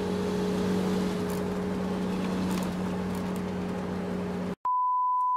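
Steady vehicle engine drone, laid on as a sound effect for the toy bus, that cuts off suddenly about four and a half seconds in; after a short gap a single high pure beep follows to the end.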